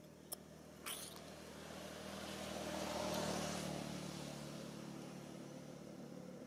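A motor vehicle passing by: its engine hum grows louder to a peak about three seconds in, then fades away. A sharp click and a brief rustle come near the start.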